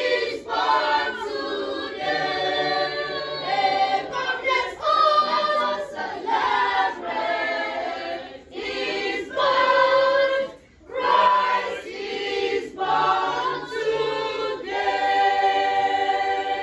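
Children's choir singing in phrases with short breaks; the singing stops at the very end.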